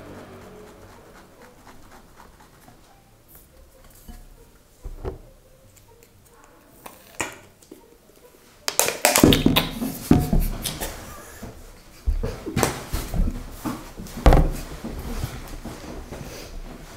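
Slime ingredient bottles being shaken and handled at a table: quiet at first with a few light clicks, then from about nine seconds a run of loud, irregular knocks and rattles.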